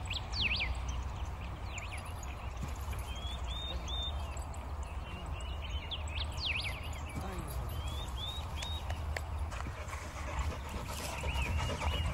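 Wind rumbling on the microphone, with short high chirping calls in small groups every second or two.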